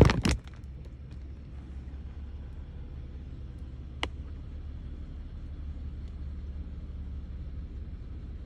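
A brief loud rustle and clatter of handling right at the start, then a steady low rumble with a single sharp click about four seconds in.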